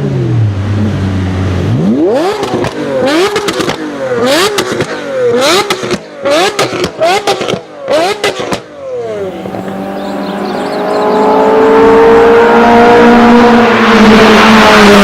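Supercar engine idling low, then revved hard about six times in quick succession, each rev rising and dropping sharply with crackles and pops as it falls. After that a steady engine note builds and grows louder toward the end.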